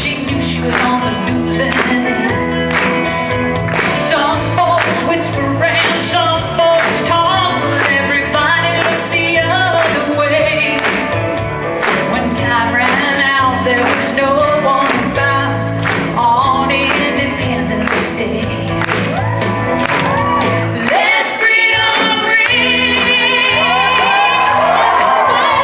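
A woman singing into a handheld microphone over backing music with a steady beat. Near the end she holds long, wavering notes with wide vibrato.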